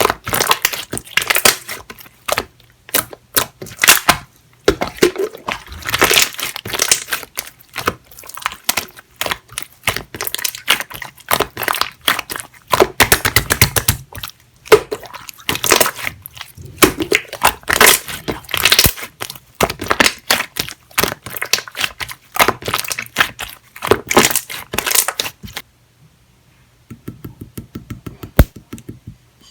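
Clear, jelly-textured slime being squeezed, stretched and pressed by hand, giving a dense run of crackling pops from air bubbles caught in it. The crackling stops about 26 seconds in, leaving only faint soft handling.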